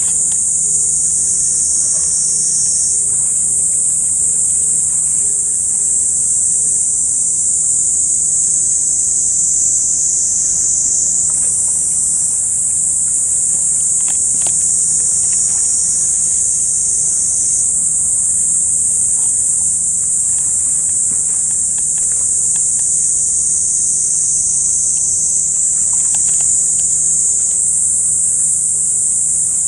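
Loud, steady high-pitched chorus of cicadas in the trees, shifting a little in pitch every few seconds as individual insects start and stop, over a faint low hum.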